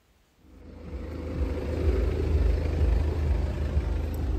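Car on the move: a steady low engine and road rumble that fades in about half a second in.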